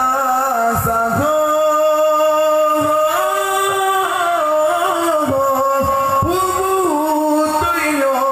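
Solo male voice singing a qasidah into a microphone, holding long notes that step and turn in ornamented melismas.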